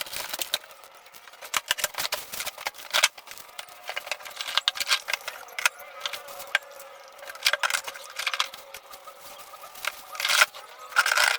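Packaging being handled and opened: irregular crinkling, clicks and rustles, with denser clusters of sharp crackles now and then.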